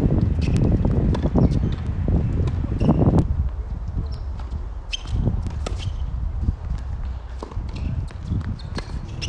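Tennis rally on a hard court: several sharp pops of rackets striking the ball and of the ball bouncing, with shoe steps on the court. A loud low rumble fills the first three seconds, then fades.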